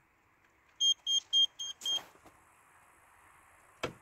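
Electronic ice-fishing rod's built-in buzzer beeping five times in quick succession, each beep a short steady high tone, the count signalling its fifth mode, the balancer mode. A single knock near the end.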